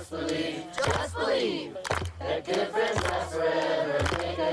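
A group of voices chanting and shouting together, many overlapping, over a steady low hum.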